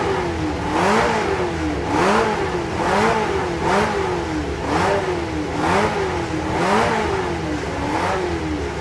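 BRM 3.0-litre H16 racing engine being blipped over and over, the revs rising sharply and falling back about once a second.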